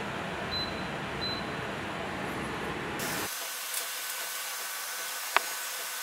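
Evaporative air cooler's fan blowing, a steady airy hiss. Two short high beeps come about half a second and a second in as its touch control panel is pressed. About three seconds in the hiss turns thinner and higher, and there is a single sharp click near the end.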